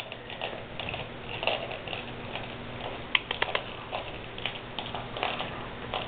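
A three-month-old Bullmastiff-mix puppy gnawing a chew stick held between its paws: irregular clicks and crunches, with a quick run of sharper clicks about three seconds in.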